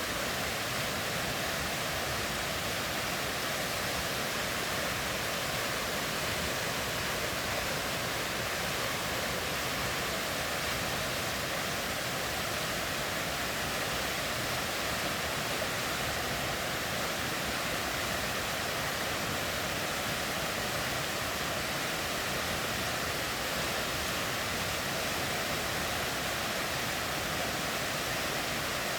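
River water rushing steadily over rocks: a constant, even rush that does not change.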